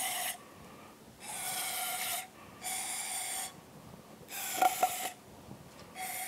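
Aerosol can of contact cleaner sprayed through a thin straw into the intake ports of a Yamaha F225 cylinder head, in short hissing bursts of about a second each, one after another, with a steady whistling tone. Two light clicks come during the burst about four and a half seconds in. The spraying is a quick check for leaking intake valves.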